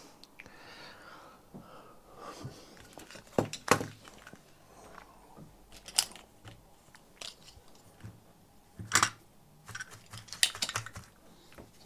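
Handling noises on a workbench: a few sharp knocks and clicks, spread out, as a circuit board is turned over and set down and a desoldering pump is picked up.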